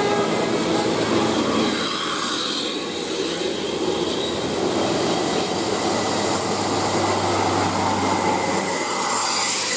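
Large tour bus driving past close by, a steady heavy rumble of engine and tyre noise.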